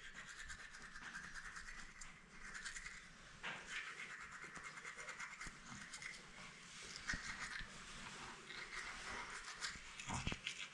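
Faint, repeated scrubbing of a toothbrush on teeth: a child brushing his teeth.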